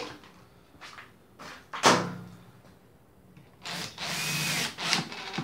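A power screwdriver runs for about a second near the end, its motor pitch rising and falling, driving a screw back in to hold the washing machine drum's counterweight. A sharp clack comes about two seconds in.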